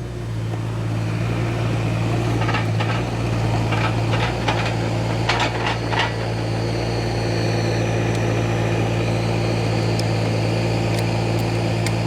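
An engine running steadily at a constant speed, its even drone coming up just before and holding throughout, with a few light knocks and clicks in the first half.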